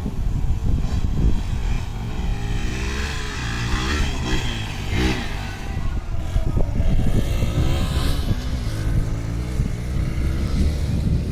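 Hero Xpulse 200 single-cylinder motorcycle engine revving on an off-road track, its pitch rising and falling several times.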